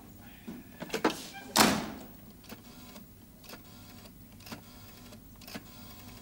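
A loud knock about one and a half seconds in, then a telephone being dialled: the rotary dial turned and clicking as it whirs back, several times over.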